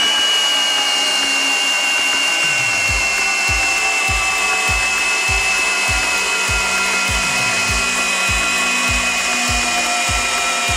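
Milwaukee M18 ONE-KEY cordless combi drill driving a 100 cm screw into soft wood. The motor's high whine sinks slowly in pitch as the load grows, and from about two and a half seconds in a low knock repeats nearly twice a second.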